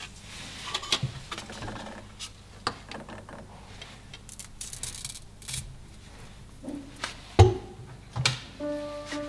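Hands handling foam parts of a small model airplane: soft rubbing and scraping with scattered small clicks, and one louder knock late on.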